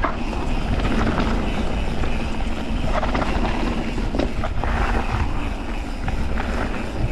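Mountain bike rolling fast down a gravelly dirt trail: steady wind rumble on the microphone and tyre noise, with scattered short rattles and knocks from the bike over bumps.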